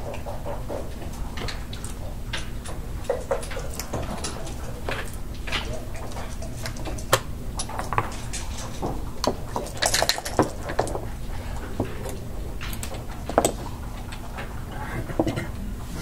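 Backgammon checkers clicking against the board and each other as they are moved, with dice rattled in a cup and rolled onto the board; a denser clatter comes about ten seconds in. Irregular short clicks over a steady low room hum.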